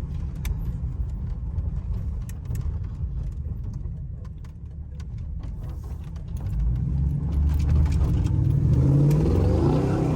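LS-swapped 1985 Monte Carlo SS's 5.3-litre V8 running, heard from inside the car while driving; its low note eases off near the middle, then climbs in pitch and loudness about six and a half seconds in as the car accelerates. Scattered sharp ticks sound over it.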